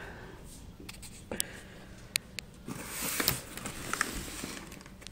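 Cardboard box and plastic packaging being handled as the box is opened, with several sharp clicks and knocks and a brief burst of rustling a little under three seconds in.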